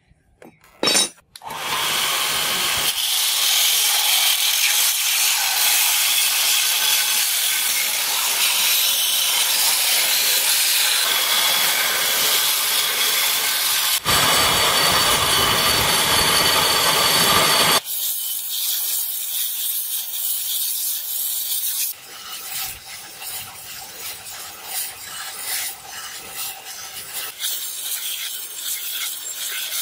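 Belt grinder's abrasive belt grinding the flat of a forged steel blade blank: a steady, loud rasping hiss that changes character abruptly a few times. A couple of short knocks come just before the grinding starts.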